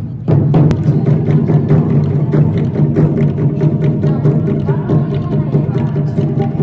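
Loud Japanese festival music with fast, continuous taiko drumming.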